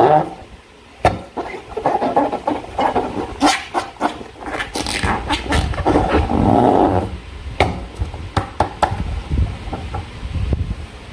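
Slime being squeezed and worked by hand: wet squelching with sharp sticky clicks and pops at irregular intervals.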